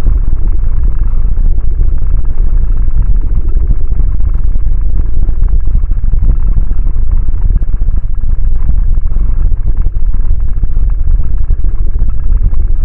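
Loud, continuous low rumble from a studio-made sound effect, steady throughout with a rough, grainy texture.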